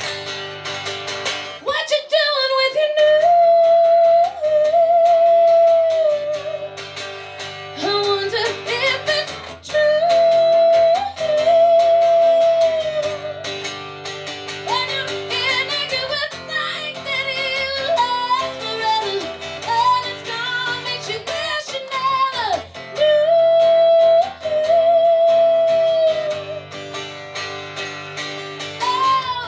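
Live song performance: a woman singing long held notes with vibrato and sliding vocal runs over guitar-led band accompaniment.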